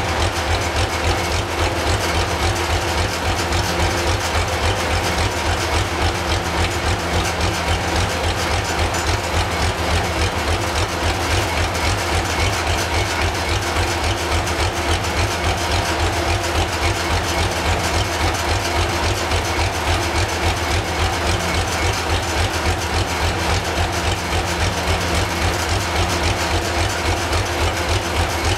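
Corvette LS1 V8 engine idling steadily, with an even, low exhaust pulse.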